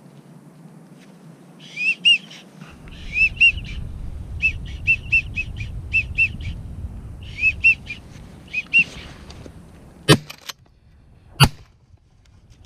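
Wigeon whistles: short rising-and-falling whistled notes in twos and threes, repeated again and again for several seconds. Near the end come a few sharp knocks.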